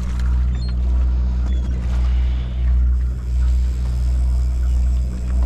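Sportfishing boat's engine running with a steady low hum.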